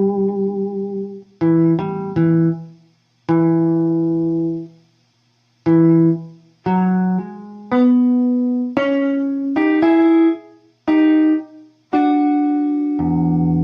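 Guitar playing a slow single-note blues lick: separate picked notes that ring out and fade, with brief gaps between them, and a wavering vibrato on a note near the start.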